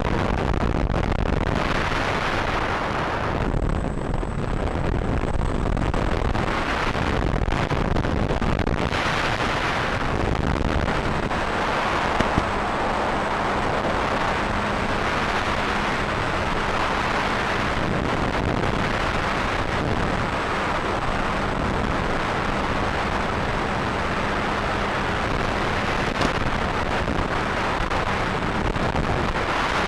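Steady, loud rushing and rumbling noise of wind buffeting the microphone, with a faint low hum partway through.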